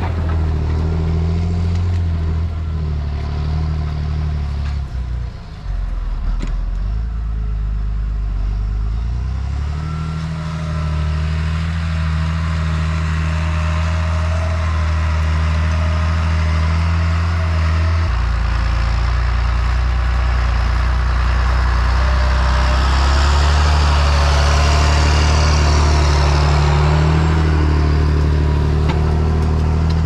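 Tractor engine running steadily under load, pulling a plough. The engine note dips briefly about five seconds in and shifts about eighteen seconds in, and a rushing noise builds over the last third.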